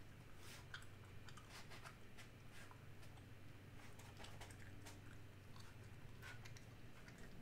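Faint, irregular scratches and light ticks of a wet watercolour brush dragged across textured watercolour paper while a blue sky wash is laid in, over a low steady hum.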